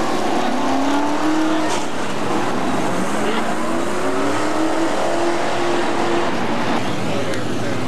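Several super stock dirt-track race cars' engines running hard together as the pack passes close, their overlapping engine notes sliding up and down in pitch through the corner.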